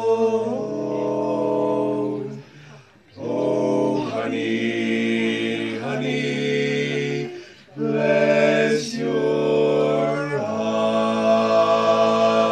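A male vocal quartet singing a cappella, four voices holding sustained chords in close harmony. The singing comes in three long phrases with short breaks between them.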